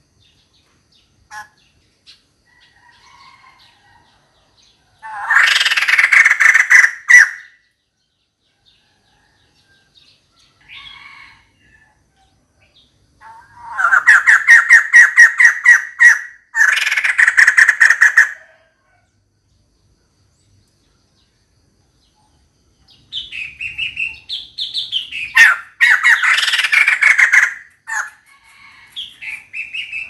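Female white-crested laughingthrush calling a mate: four loud bursts of fast, rapidly repeated harsh notes, each a few seconds long, with quiet pauses between.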